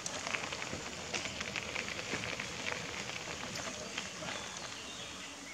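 Outdoor ambience: a steady hiss with many faint scattered crackles and ticks.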